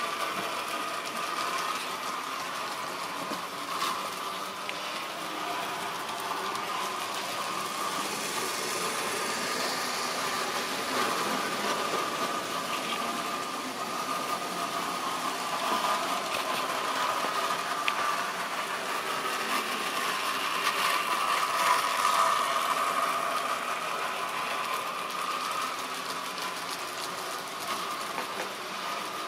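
Model railway train running on the track: the locomotive's electric motor whines steadily, with the wagons' wheels rattling and clicking along the rails. The whine grows louder for a few seconds about two-thirds of the way through.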